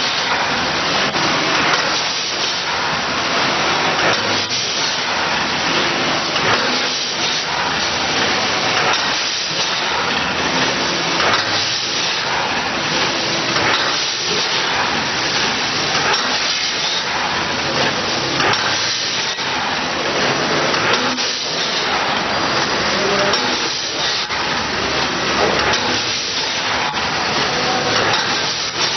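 Packaging machine running: a steady hiss with a regular cycling beat about once a second.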